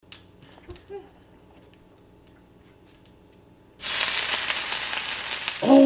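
A few faint clicks and taps, then about four seconds in a loud sizzle starts suddenly and keeps going: food frying in a pan on a stove turned up high.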